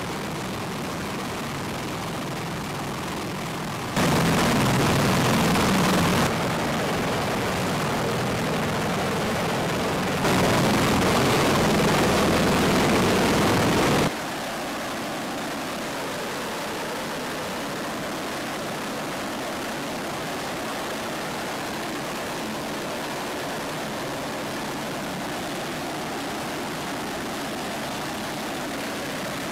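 CH-53E Super Stallion helicopters running on the ground: the steady noise of their three turboshaft engines and turning rotors. It grows louder between about four and fourteen seconds in, with the level jumping abruptly several times.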